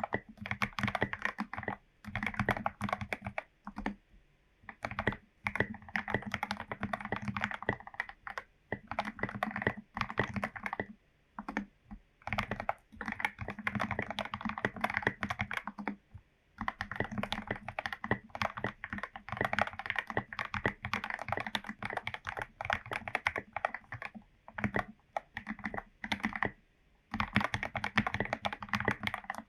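Typing on a foam- and tape-modded Royal Kludge RK84 mechanical keyboard with lubed Gateron Yellow linear switches: fast runs of keystrokes broken by short pauses every few seconds.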